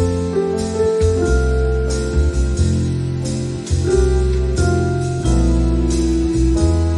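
Instrumental background music: sustained melodic notes over a deep bass that changes about once a second.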